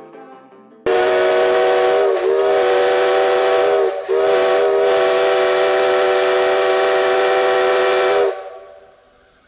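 Steam locomotive whistle blowing one long, steady blast of about seven seconds, its pitch sagging briefly twice, then a fading hiss of steam as it shuts off.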